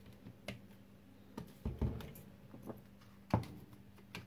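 Scattered light clicks and knocks of a metal spoon against a ceramic bowl and of bottles handled on the countertop. The loudest knock comes a little over three seconds in.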